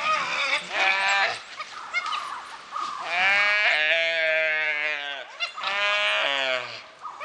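Gaur calf bleating in distress as dholes attack it: three drawn-out calls, the middle one the longest at about two seconds.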